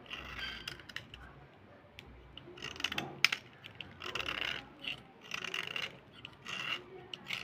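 A small blade scraping along a white slate pencil in short, scratchy strokes, about six of them with pauses between, shaving powder off the pencil's surface. A sharp click stands out about three seconds in.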